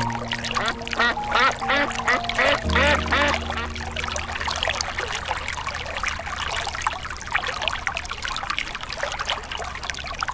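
Animal calls repeated rapidly, several a second, over steady sustained background music notes. After about four seconds the calls thin out into an even hiss.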